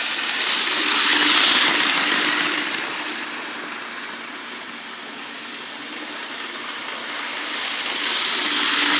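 Bachmann HO-scale 4-4-0 'General' model locomotive with a three-pole motor running fast around a loop of track, its motor hum and wheels on the rails as one steady running noise. It is loudest as it passes close about a second in and again near the end, quieter in between. The locomotive is running far too fast for its scale.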